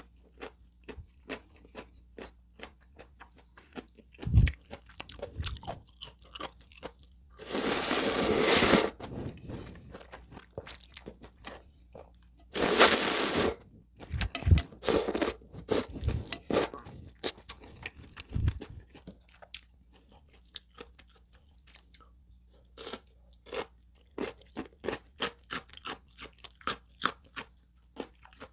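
Close-miked eating of ramen noodles: two loud slurps of about a second each, around 7.5 and 12.5 seconds in, with crisp crunching and chewing and lip smacks throughout.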